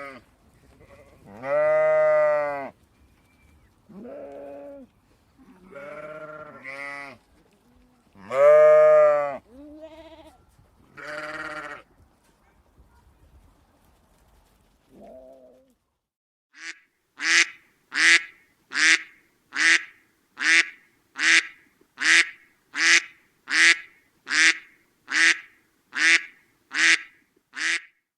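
Goats and sheep bleating in a barn, several separate calls over the first half. Then, after a short lull, a steady run of about sixteen evenly spaced duck quacks, a little more than one a second.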